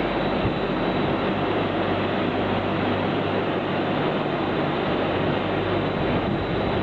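Hydraulic high-frequency plastic welding machine running: a steady low hum under a constant hiss, with no breaks or strikes.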